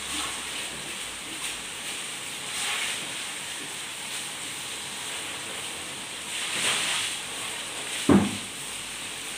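Tofu deep-frying in a large wok of hot oil: a steady sizzle that swells twice as fresh pieces are tossed in. A single sharp thump comes about eight seconds in.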